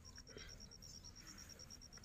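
Near silence, with a faint, rapid high-pitched ticking of about a dozen pulses a second.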